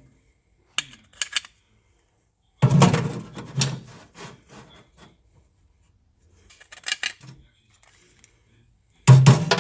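Rubbing and scraping in several separate bursts, the longest about two seconds, with quiet gaps between them.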